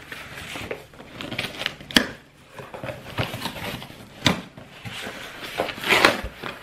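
A cardboard shipping box being opened by hand: the flaps are pulled open and a flat cardboard insert is lifted out, with scraping and rustling of cardboard and a few sharp snaps, the loudest rustle coming near the end.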